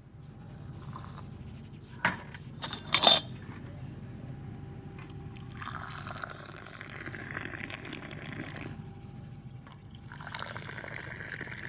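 Tea poured from a teapot into a glass in two long pours, the traditional pouring out to mix the brew. Two sharp clinks come before the pours, about two and three seconds in.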